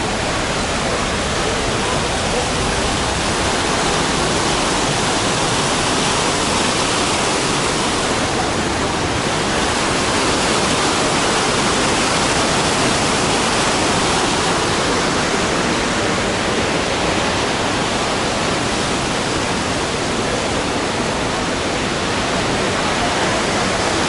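Steady rush of white water from the Düden River cascading over rocks.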